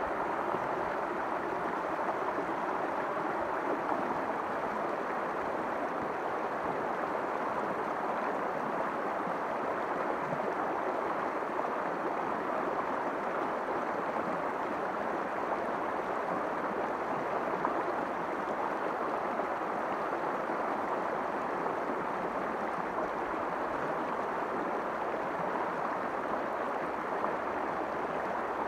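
Shallow river running fast over rocks in a riffle: a steady, even rush of water.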